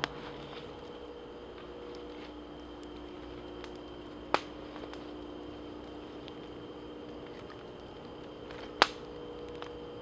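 Small wood campfire crackling faintly as sticks are pushed into it, with two sharp snaps about four and a half seconds apart, over a faint steady hum.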